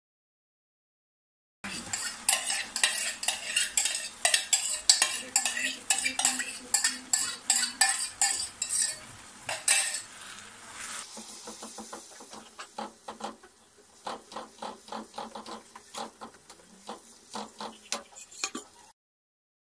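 Grated tomatoes frying in hot oil in a non-stick karahi, sizzling while a silicone spatula scrapes and knocks against the pan as it stirs. The strokes come fast and dense at first, then turn softer and sparser, with less hiss, about halfway through.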